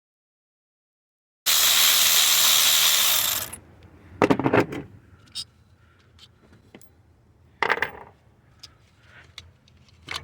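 A loud, steady hiss for about two seconds, then scattered light clicks and clunks of ignition coil packs and their connectors being unplugged and handled on a Toyota 2.4-litre four-cylinder engine that is switched off. The two loudest clunks come about four seconds in and again near eight seconds.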